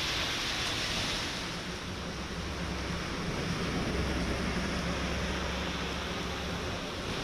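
Heavy monsoon rain pouring steadily, a dense even hiss, with a low rumble swelling underneath through the middle.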